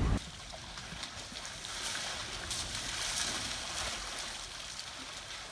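Soft, steady outdoor hiss with no clear single event, swelling slightly in the middle.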